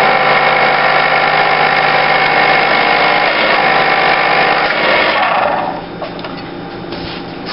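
1956 Udico Model 58-H electric can opener running and turning a can against its cutter: a loud, steady, noisy motor hum with many tones, from a wobbly, worn motor bearing. It stops about six seconds in.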